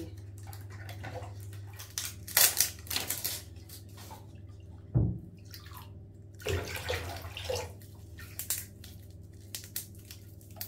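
Bath water splashing and sloshing in short bursts over a steady low hum, with a single knock about five seconds in.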